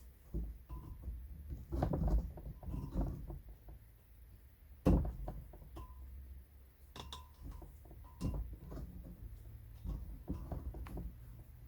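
Irregular knocks and a few short clinks from hand work on a metal fence, with the loudest knock about five seconds in, over a steady low hum.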